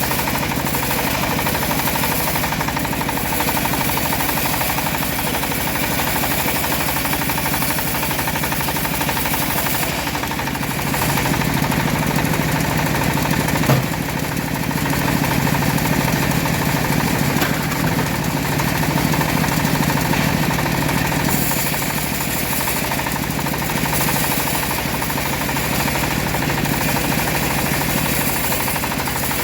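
Homemade bandsaw sawmill running steadily. Its low hum grows stronger from about 11 to 21 seconds in, with a single sharp knock near 14 seconds.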